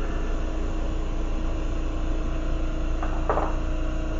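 Steady rushing noise with a constant low hum from a running lampworking setup (torch flame and bench ventilation), broken by two short scraping sounds about three seconds in.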